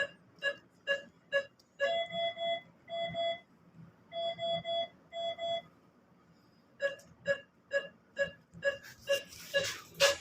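Patient monitor beeping with each pulse, about two beeps a second, interrupted by alarm beeps that sound in a group of three then two, twice. The pulse beeps resume, with a rustle and a sharp clatter near the end.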